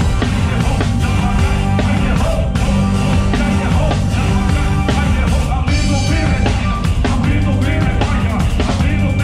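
Live band playing rock music, with a drum kit driving steady beats under sustained bass and keyboard notes.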